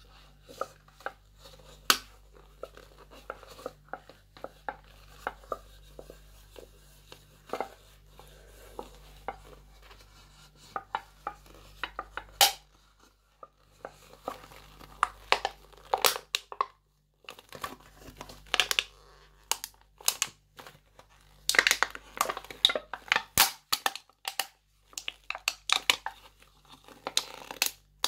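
Aluminium Coke can being squeezed and crushed in leather-gloved hands: irregular sharp crackles and crinkles of the thin metal buckling, sparse at first and coming in denser flurries in the second half.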